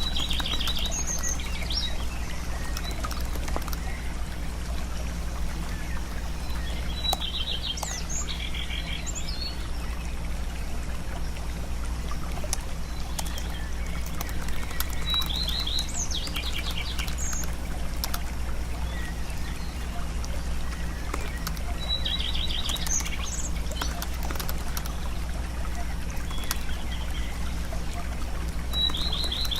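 A bird calling with a short, rapid chirping trill repeated about every seven seconds, over a steady low hum.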